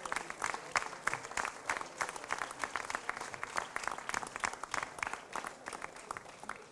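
Crowd applauding: dense, irregular clapping that fades out near the end.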